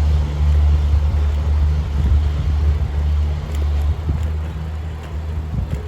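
Road traffic passing below and behind, a steady low rumble that eases a little about four seconds in.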